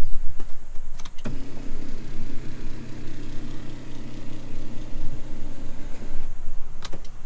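A couple of clicks, then a small electric motor in the truck hums steadily for about four seconds before stopping. More clicks follow near the end.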